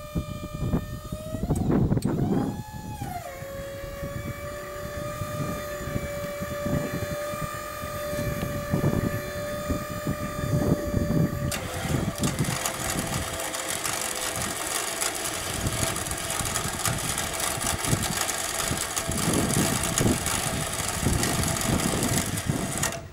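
Truck-mounted hydraulic knuckle-boom crane working while it lowers a concrete block. It makes a steady whine with the truck's engine running underneath; the pitch rises briefly about two seconds in and then settles. About halfway through, the whine changes to a louder, even hiss.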